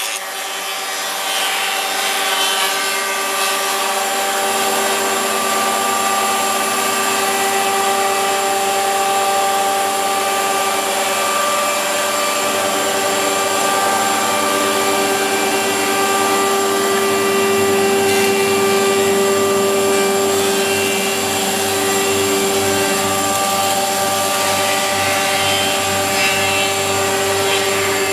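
Weinig four-sided planer running steadily, its electric motors and spinning cutterheads giving a loud whine of several steady tones.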